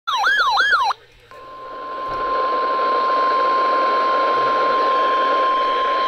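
A RadioShack weather radio sounding a severe thunderstorm warning alert through its speaker. It opens with under a second of fast warbling siren sweeps. After a short break, about a second in, the NOAA Weather Radio 1050 Hz attention tone starts: one steady, loud tone over radio hiss that signals a warning message is about to be broadcast.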